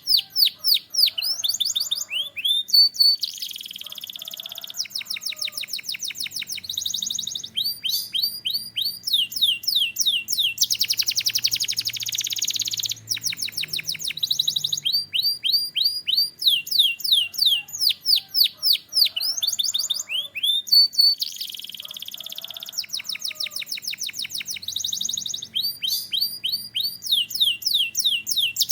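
Canary singing a long continuous song: runs of fast, repeated sweeping whistled notes, broken several times by rapid buzzing trills.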